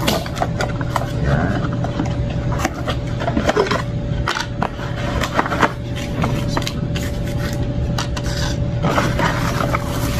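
Cardboard product box being opened and handled, with cardboard scraping and rustling and many irregular clicks and knocks as the packaged insert is worked out.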